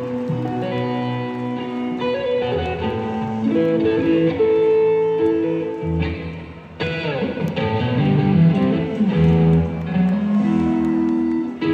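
Live rock band playing, with electric guitar carrying the melody over bass and drums. The music dips briefly about six seconds in, then comes back up.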